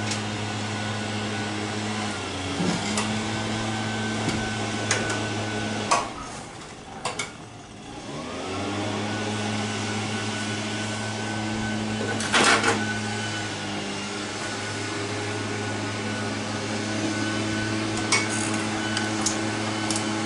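Steady hum of a motor-driven machine running in the background, which cuts out about six seconds in and spins back up about two seconds later, rising in pitch. Over it come sharp metallic clicks and a clatter of hand tools as the carburetor mounting nuts are taken off, the loudest about twelve seconds in.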